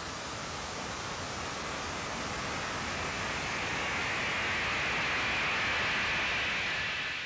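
A steady wash of hiss-like noise, with no beat or clear notes, slowly swelling and growing brighter in the upper middle: the noise outro of a raw black metal track.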